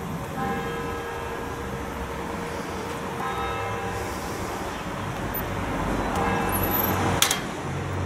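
Church bells tolling in strokes about every three seconds over the steady rumble of road traffic, with one sharp click about seven seconds in.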